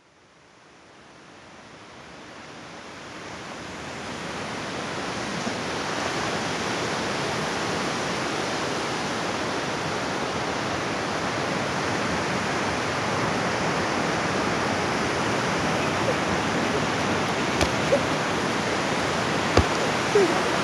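Sea surf breaking on a sandy beach: a steady rush of waves that fades in from silence over the first few seconds, with a few short clicks near the end.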